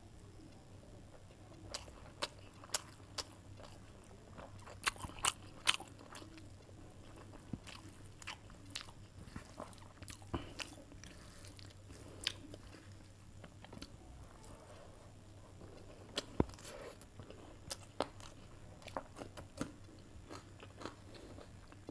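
Close-up eating sounds of a person chewing a mouthful of chicken curry and rice, with irregular sharp crunches and clicks and a faint steady low hum underneath.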